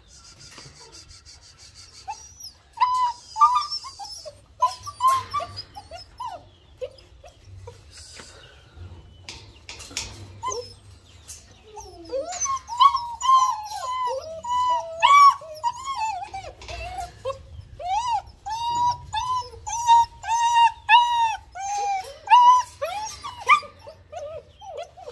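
German Shepherd puppies whimpering and whining in short, high, arched cries. They come only now and then at first and run almost without a break from about halfway through.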